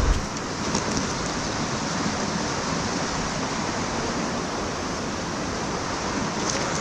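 Creek water rushing steadily over rocks, a constant hiss without a break. A short low thump comes right at the start.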